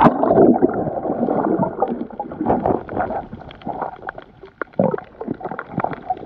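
Water gurgling and sloshing, heard muffled through a camera held underwater, with irregular knocks and bubbles. It is louder in the first couple of seconds and quieter near the middle.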